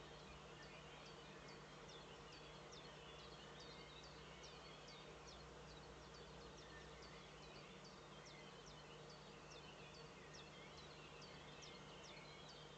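Near silence: faint, high, short chirps repeated about twice a second, the song of a distant small bird, over a steady low hum.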